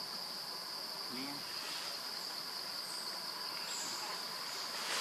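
Steady, high-pitched drone of insects calling without a break.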